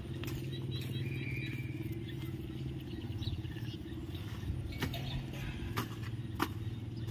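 Small motorbike engine idling steadily, with a few sharp clicks or taps in the second half.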